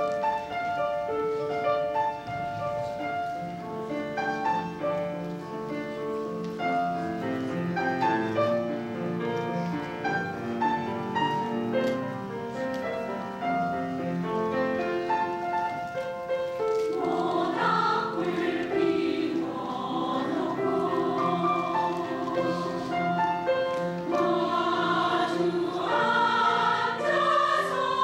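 Piano playing alone, then a women's choir comes in a little past halfway, singing with vibrato over the piano accompaniment.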